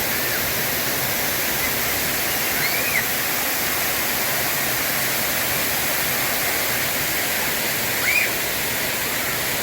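Artificial waterfall: water pouring down steadily in an even, unbroken rush. Two short high calls rise briefly above it, about three seconds in and near the end.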